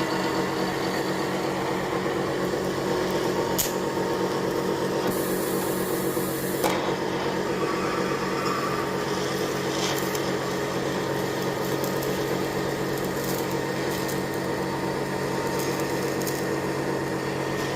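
Electric arc welding: the welding machine's steady electrical hum under the rough crackle of the arc, with a short burst of louder hiss about five seconds in.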